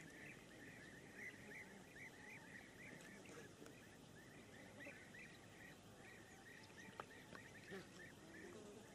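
Faint, quick chattering bird calls, a few a second, with one small click about seven seconds in.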